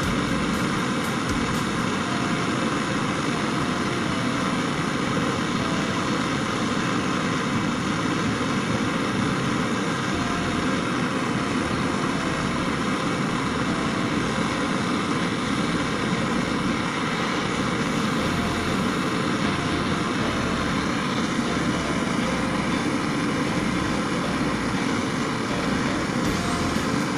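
Steady, unbroken machine noise, even in loudness throughout.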